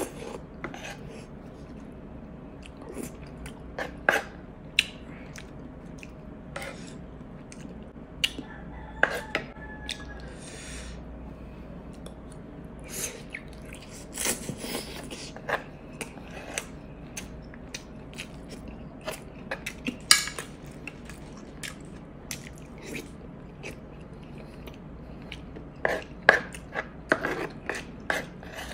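Close-miked eating: chewing of misua noodle soup, broken by short clicks of a metal spoon scraping and knocking on a glass dish at irregular intervals. A faint steady hum runs underneath.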